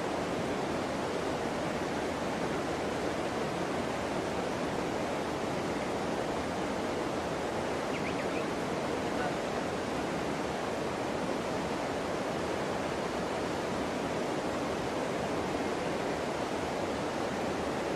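Steady rush of flowing river water, an even hiss with no break or change.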